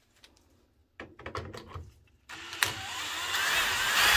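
A few handling clicks and knocks, then a cordless drill runs, getting louder and taking on a whine near the end, as it unscrews a star-head (Torx) screw from the washer's control panel.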